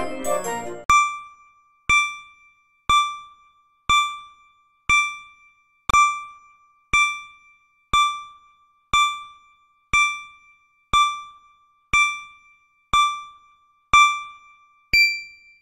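A short keyboard-music jingle ends about a second in, then a countdown-timer ding sounds once a second, fifteen times, each a sharp bell-like tone that fades quickly. The last ding marks the countdown reaching zero and rings brighter and higher than the others.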